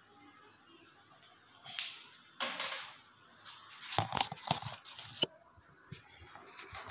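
A few scattered knocks and clicks with a short rustle, then a quick run of sharp taps and knocks about four seconds in.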